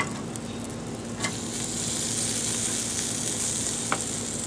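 Chicken wings sizzling on the grate of a Big Green Egg charcoal grill, a steady hiss that grows a little louder about a second and a half in. Sharp clicks of tongs against the grate and plate: a loud one at the start and two smaller ones later.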